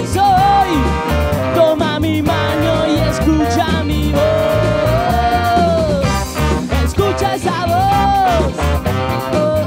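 Live band playing, with electric guitar and drums keeping a steady beat under a horn section of trumpet and tenor saxophone. The tenor saxophone plays long held melodic phrases, one from about four seconds in and another near the end.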